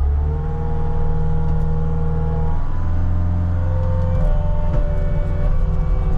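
CAT 279D skid steer's diesel engine running at high revs under load while pushing dirt. Its note holds steady, then shifts twice partway through as the load changes.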